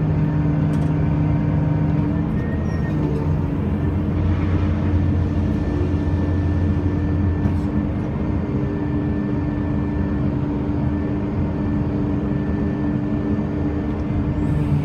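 Zoomlion crane running: a steady low mechanical drone with a few constant tones. A deeper hum swells about four seconds in and eases off about eight seconds in.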